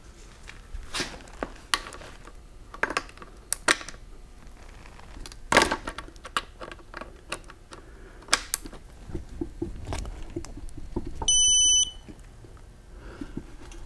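Sharp metallic clicks and knocks of tools and transmission parts being handled, then a single electronic beep lasting about half a second near the end. The beep is a digital torque wrench signalling that a bolt has reached its set torque.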